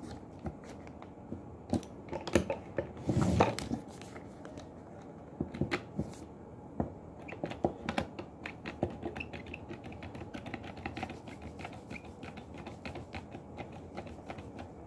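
Irregular light clicks and knocks of hands handling small hard objects on a workbench, a DC magnetic contactor and its test gear, with a louder short rattling scrape about three seconds in.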